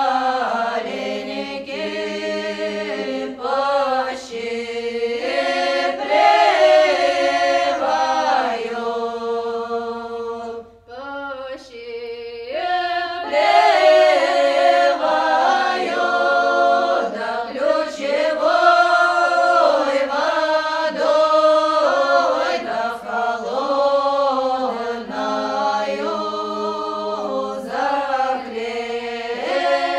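A choir singing a slow song a cappella in long, held notes, with a brief break about eleven seconds in.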